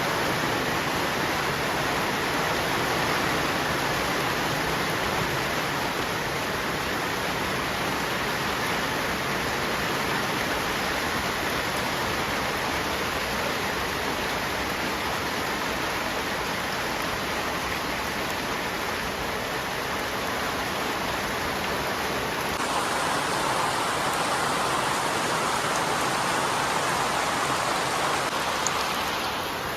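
Steady rain falling, an even hiss with no break; about three quarters of the way through its tone shifts slightly, fuller in the middle range.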